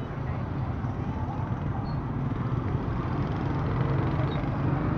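Motorbike and scooter engines running past close by in a busy street, under a steady din of traffic and crowd, growing a little louder toward the end.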